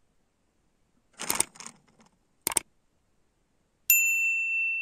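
Sound effects of an animated subscribe-button overlay. About a second in come two short noisy sounds, then a sharp click. Near the end a bright bell ding rings steadily for about a second.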